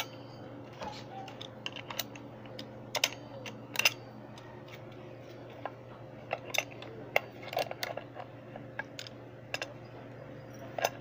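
Irregular sharp metal clicks and clinks of an adjustable wrench working the loosened locknut on a scooter's CVT clutch and rear pulley assembly, coming in small clusters.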